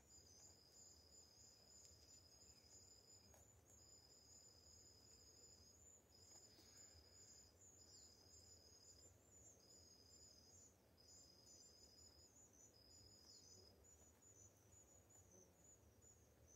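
Near silence with faint insect song: a steady, high pulsing chirr and, a little lower, a trill that runs in stretches of one to two seconds with short breaks.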